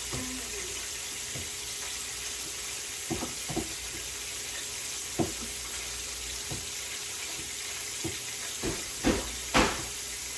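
Chicken legs frying in hot oil, a steady sizzle throughout, with scattered knocks and clinks of kitchenware; the loudest knocks come near the end.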